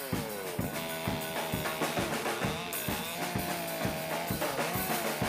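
Background music with a steady drum-kit beat, about three hits a second, under a wavering melodic line.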